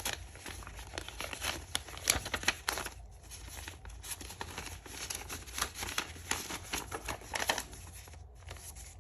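Paper banknotes and paper envelopes rustling as cash is handled and tucked into a budget envelope, with scattered short crackles, busiest in the first few seconds.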